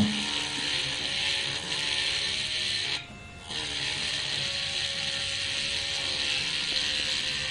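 Mini cordless rotary tool running with a drill bit pressed into the workpiece, a steady high whir; it stops briefly about three seconds in and then starts again.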